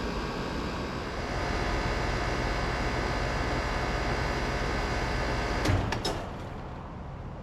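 Brand-new York LX Series 5-ton central air conditioner running with a steady hum from its LG scroll compressor and Broad Ocean condenser fan. Near the end come a couple of sharp clicks, and the compressor hum cuts off as the unit shuts down, leaving a fainter steady rush.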